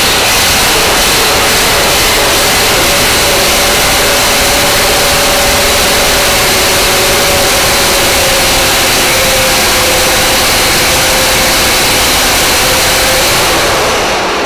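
Minneapolis-Moline UB Special pulling tractor engine running hard and steady at high speed, loaded by a PTO dynamometer, very loud. It eases off near the end. On this pull it makes a little over 100 horsepower.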